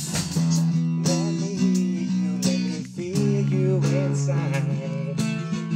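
Acoustic guitar playing sustained chords in an unplugged band arrangement, an instrumental passage between rapped verse and sung chorus.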